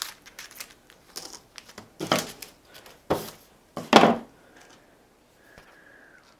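Small plastic parts bag crinkling as it is cut open with a knife and emptied, in a run of short rustles and scrapes with three louder ones about two, three and four seconds in.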